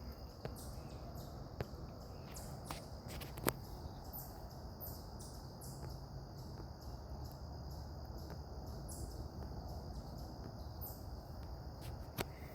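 Chorus of insects such as crickets: a steady high-pitched drone with short, very high chirps repeating over it, and a few sharp clicks.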